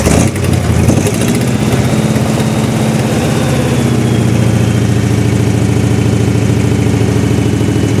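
Freshly rebuilt flathead engine in a Glasspar G2 running on its first start, not yet broken in. It gives a brief blip of throttle in the first second, then runs steadily at a low idle.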